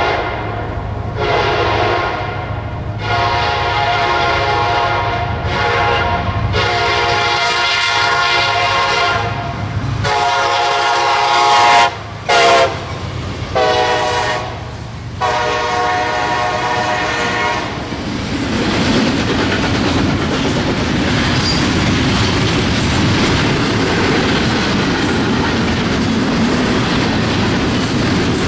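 CSX freight train's diesel locomotive horn sounding a series of long and short blasts as the train approaches and the locomotives pass, over a low engine rumble. After the horn stops, about two-thirds of the way through, double-stack container cars roll past with a steady clatter of wheels on rail joints.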